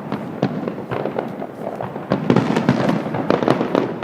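Fireworks display going off: a quick run of overlapping bangs and pops, growing denser and louder about two seconds in.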